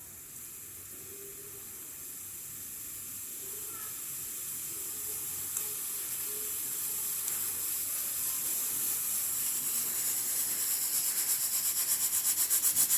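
Hawkins pressure cooker letting off steam: a high hiss that grows steadily louder as pressure builds, breaking near the end into rapid pulsing, about five a second, as the whistle begins.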